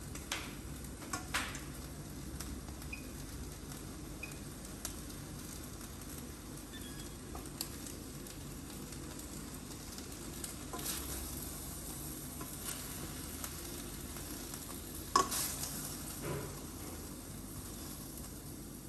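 Chicken and rice vermicelli sizzling gently in a frying pan on low heat while a utensil stirs them, with scattered clicks of the utensil against the pan and one sharper knock near the end.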